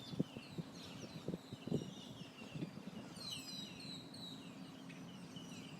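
Many small birds chirping at once in a dense chorus of short, high calls, busiest about three seconds in. A few short, low sounds come in the first two seconds.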